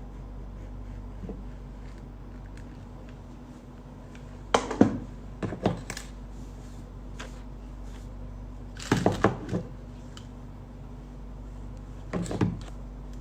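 Three short clusters of knocks and clicks, a few seconds apart, like objects being set down or handled, over a steady low electrical hum.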